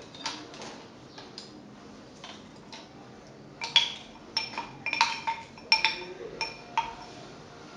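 A spoon tapping and scraping against the inside of a small glass jar to knock out the last of the yogurt. There are a few faint clicks at first, then from about halfway through a quick run of a dozen or so ringing glass clinks that stops shortly before the end.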